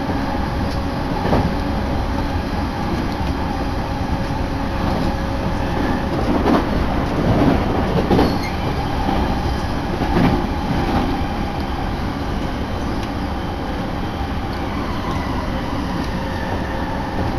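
Electric commuter train heard from inside the carriage while it runs along the line: a steady rumble of wheels on rails with a faint steady hum. A few clacks come over rail joints or points between about six and eleven seconds in.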